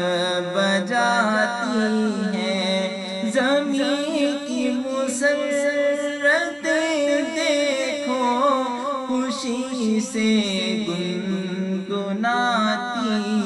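Unaccompanied devotional vocal chanting of a naat: voices holding long notes that waver and slide in pitch, with no instruments.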